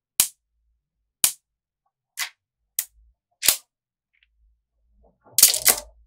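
Small magnetic balls clicking sharply together: five single snaps about a second apart, then a quick flurry of clicks near the end.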